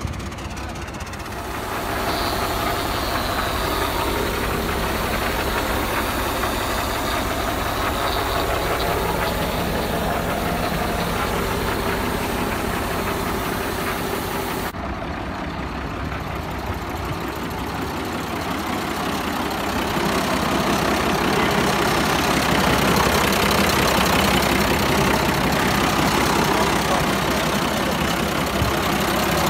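Old Mercedes-Benz truck diesel engine idling steadily just after being started. The sound changes abruptly about halfway through and runs a little louder toward the end.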